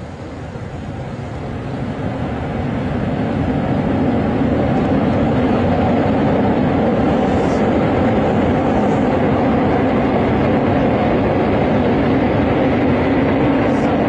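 Jet aircraft engine noise, growing louder over the first few seconds and then holding as a steady roar.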